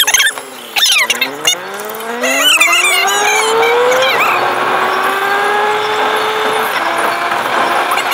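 Car engine heard from inside the cabin, accelerating: its note rises steadily for about three seconds, drops at a gear change about four seconds in, then holds fairly steady with another small drop near the end. A few short, high animal calls are heard in the first second and a half.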